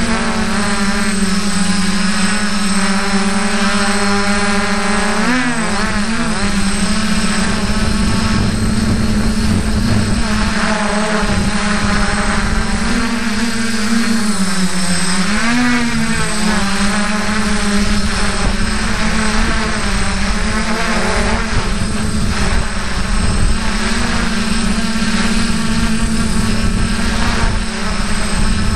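F450 quadcopter's motors and propellers running steadily, heard up close from the onboard camera as a loud hum. Its pitch wavers and dips twice, about 5 and 15 seconds in, as the motors change speed to manoeuvre.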